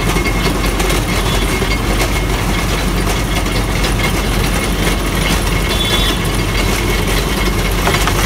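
Motor-driven sugarcane roller crusher running steadily, a loud constant mechanical noise over a low hum.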